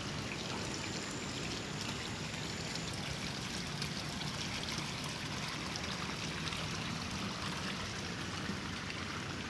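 Running water flowing steadily: an even, unbroken rushing hiss.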